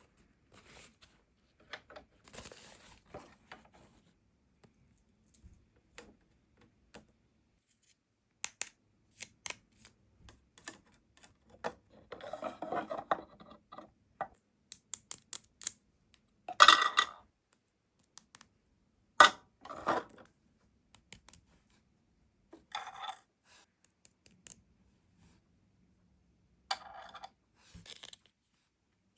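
Small plastic toy pieces and packaging being handled: scattered clicks, taps and light rustling or tearing, with two sharper clacks a little past the middle.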